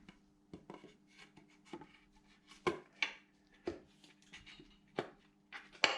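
Metal parts clinking and knocking in short, irregular taps as a piston and connecting rod are worked out of an R53 W11 engine block, with the loudest knocks about halfway through and near the end.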